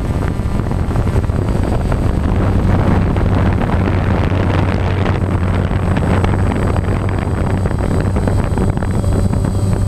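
Quadcopter drone's electric motors and propellers buzzing steadily, picked up by the camera on the drone itself, with a noisy rush of air over the hum.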